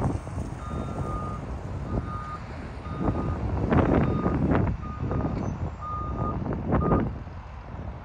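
Reversing alarm of a JCB 419S wheel loader backing up, beeping about once a second in half-second tones over its running engine, stopping about seven seconds in. Two louder surges of noise come through around the middle and just before the beeping stops.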